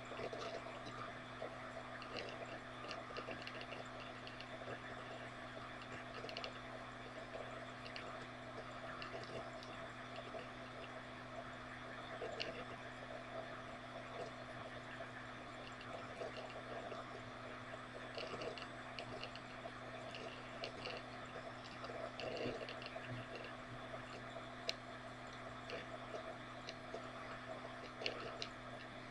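Steady low electrical hum with faint, irregular small clicks and crackles over a background hiss.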